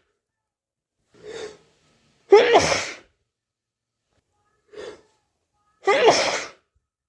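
A person sneezing twice, about three and a half seconds apart, each sneeze preceded by a short, quieter intake of breath.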